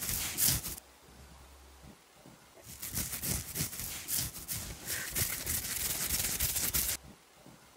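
Hand saw cutting out a lump of hardened epoxy from the plywood corner joint between a boat's side panel and transom, the lump that kept the joint from closing. A short run of quick rasping strokes, a pause of nearly two seconds, then about four seconds of quick, uneven strokes that stop near the end.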